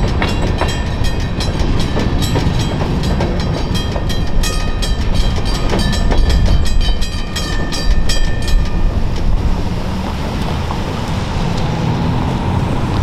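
Freight train of covered hopper cars rolling past with a low rumble and clickety-clack, while the crossing's pair of teardrop bells ring rapidly. The train clears and the bells stop about nine seconds in.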